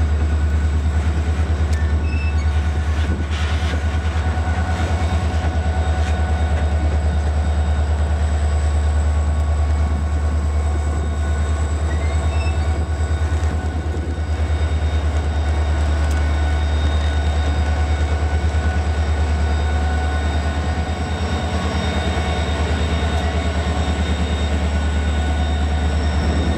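Coal train hopper cars rolling past close by, followed by a Norfolk Southern EMD SD40-2 diesel locomotive at the rear of the train running past; a loud, steady low rumble throughout with faint steady squeal tones above it.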